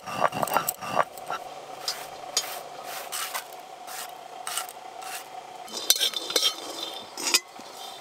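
Irregular scrapes and light clicks of ground spice being scraped off a stone grinding slab (shil) and onto a plate.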